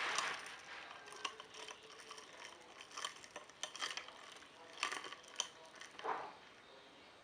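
Spoon and ice clinking against a glass as an iced drink is stirred: irregular light clinks and taps, with a few brief rushing sounds.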